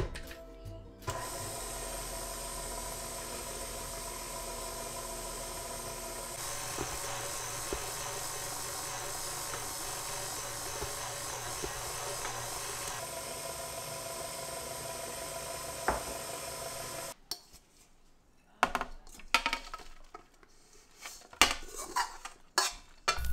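KitchenAid tilt-head stand mixer: a click as the head is lowered and locked, then the motor runs steadily for about sixteen seconds while the beater works through a dough, with a denser, brighter stretch in the middle. It then stops, followed by scattered knocks and clinks of the stainless steel mixing bowl as the dough is tipped out onto the counter.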